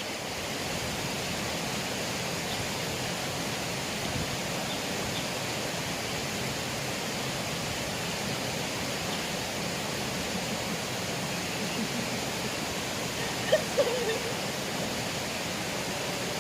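Steady rush of flowing river water, with one short sharp sound about thirteen seconds in.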